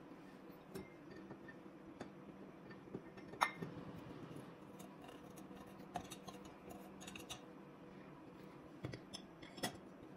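Ceramic pot lids and a stainless steel bowl being set into a dishwasher's wire rack: scattered light clinks and knocks, the sharpest about three and a half seconds in, over a faint steady hum.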